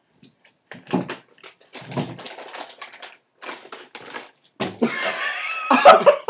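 Loud laughter from two young men that breaks out about four and a half seconds in and peaks near the end. Before it come a few short, scattered mouth and handling sounds with gaps between them.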